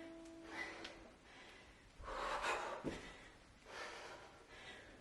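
A woman breathing hard in loud, rasping breaths, three long heaving breaths, while working through weighted lunges. A dull thud comes near the middle.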